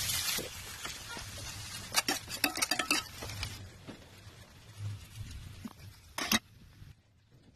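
Sliced onions sizzling in hot oil in a steel pan, loudest at the start and then settling to a quieter hiss. A metal utensil clinks against the pan several times about two to three seconds in, and once more sharply near the end.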